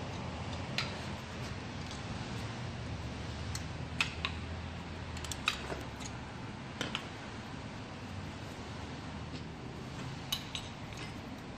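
Scattered light metallic clicks and clinks as a red aftermarket camber-kit upper control arm and its bolts are handled and lined up by hand, heard over a steady low hum.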